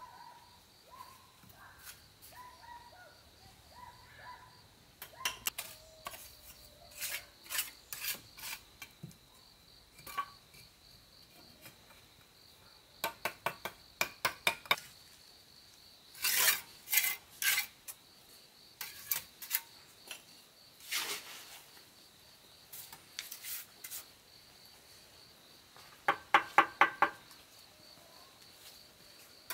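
Bursts of scraping and clinking in short, quick strokes, like a metal tool or utensil worked against a hard surface; a group near the end rings briefly. A faint steady insect buzz sits behind them.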